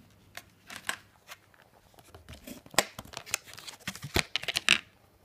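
Clear plastic blister tray crackling and small cutter pliers clicking as the pliers are worked out of the packaging: an irregular run of sharp clicks and rustles, the loudest near the end, then it stops.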